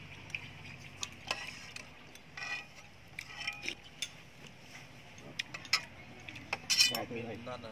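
Metal ladle and spoons clinking and scraping against an aluminium cooking pot and ceramic bowls as soup is ladled out, in scattered light clicks with a louder clatter near the end.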